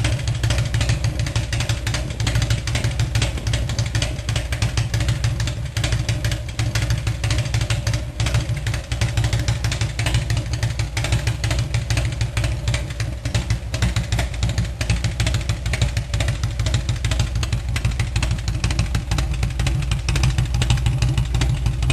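Indian Chief motorcycle's V-twin engine running steadily, with a fast, even beat of firing pulses.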